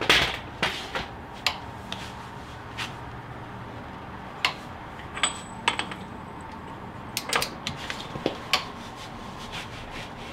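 Steel hand tools clinking and knocking as a socket and long-handled wrench are fitted onto a front axle hub nut, with a loud clank right at the start and a few scattered metallic taps after.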